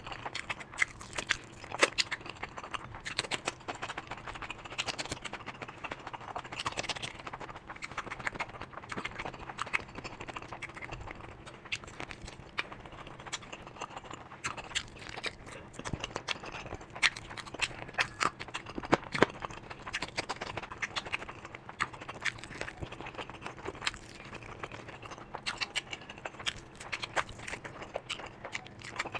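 Close-miked eating sounds: chewing and crunching with many irregular wet clicks and crackles, over a faint steady hum.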